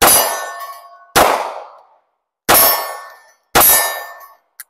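Ruger SP101 9mm revolver firing four shots about a second apart. A steady ringing lingers after each shot as it dies away. A faint click near the end is the hammer falling on a spent case, which shows the five-shot cylinder is empty.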